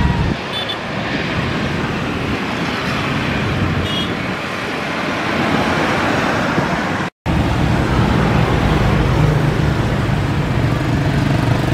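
Garuda Indonesia Boeing 737 jet engines running steadily as the airliner rolls out on the runway after touchdown. A little past seven seconds the sound cuts out briefly, then the steady jet engine noise of a second twin-jet airliner on final approach continues.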